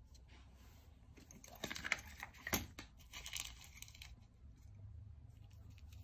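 Rustling with a run of small sharp clicks, made by a hand and a dwarf hamster moving on a plastic surface, loudest between about one and a half and three and a half seconds in.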